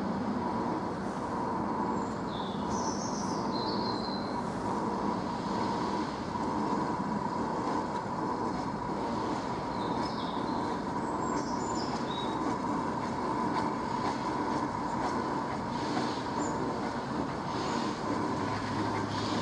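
Great Western 6400-class pannier tank steam locomotive moving slowly off shed, heard at a distance as a steady, continuous noise. A few short high chirps sound over it.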